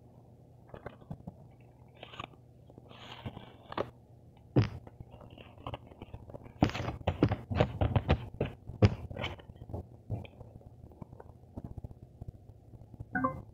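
Hands handling a cardboard box: taps, scrapes and rustles as the inner box slides out and its flaps are folded open. A dense run of quick taps and scraping comes about halfway through, with scattered single taps before and after.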